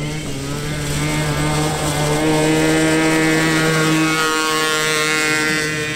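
Engine of a junior autocross buggy running at high, nearly steady revs as it drives on the dirt track, loudest in the middle of the clip.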